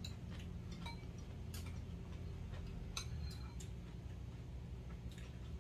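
Metal spoon and chopsticks clicking against bowls and plates now and then: a handful of light clinks, a couple of them ringing briefly.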